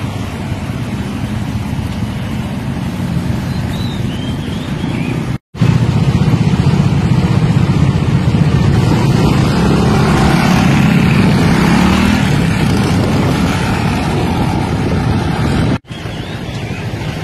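Street traffic: motorcycle and car engines and tyre noise, swelling as vehicles pass close about ten seconds in. The sound cuts out abruptly twice, briefly each time.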